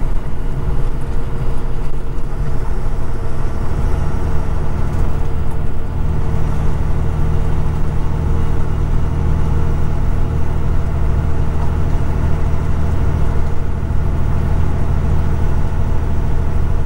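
Kenworth road train truck on the move, its diesel engine and tyres making a steady, even drone at cruising speed.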